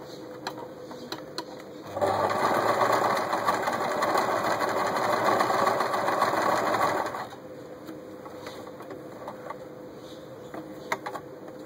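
Janome Super Automatic 348 electric sewing machine stitching at speed through folded fabric: it starts about two seconds in, runs steadily for about five seconds and then stops sharply. Before and after the run there are only a few small clicks over a faint steady hum.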